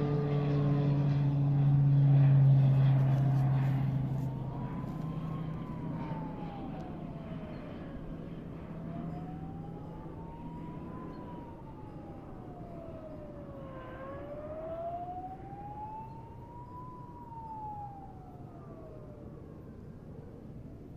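Emergency sirens wailing in slow rising and falling sweeps, each about three seconds up and three down, with a fainter second siren joining at a higher pitch later on. An aircraft engine drone is loudest at the start and fades away over the first few seconds.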